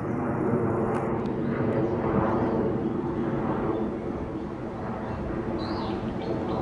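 A steady engine drone made of several layered, even tones, from a passing motor vehicle or aircraft.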